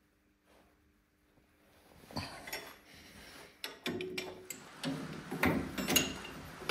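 Spanner and steel fittings clicking and clinking as the bottom bolt of the Unimog's front coil spring is undone, starting about two seconds in as a run of sharp knocks, some of them briefly ringing.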